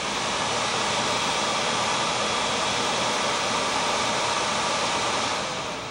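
Swiftech MCX478 CPU cooler fan running at full speed, a very loud, steady rush of air; it starts to fade near the end as the fan winds down.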